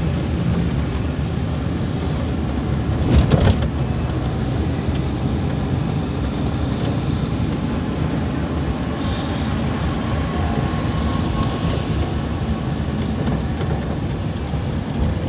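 Steady road and engine noise heard from inside a moving car, with a brief louder knock about three seconds in.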